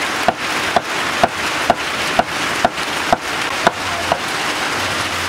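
A cleaver chopping raw meat on a wooden chopping board, about two knocks a second over a steady hiss, stopping about four seconds in.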